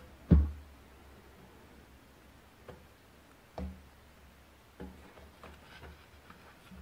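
A single sharp thump just after the scroll saw stops, then scattered soft taps and knocks as the taped veneer packet is shifted on the metal saw table, over a faint low hum.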